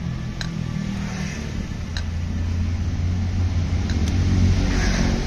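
An engine running nearby: a steady low rumble that swells toward the end. A few faint light clicks sound over it.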